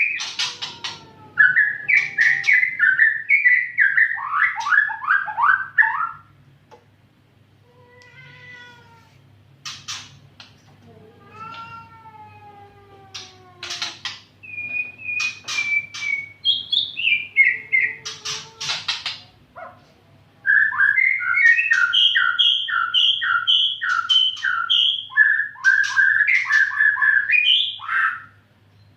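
White-rumped shama (murai batu) singing: varied whistled phrases with fast runs of repeated notes. A quieter stretch of slow, falling slurred notes comes in the middle, then a long run of rapid up-and-down notes in the last third.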